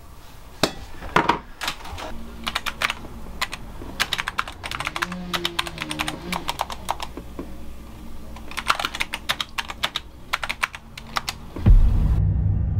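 Typing on a computer keyboard, keys clicking in quick bursts with short pauses between words. Near the end a loud, deep boom comes in and keeps sounding.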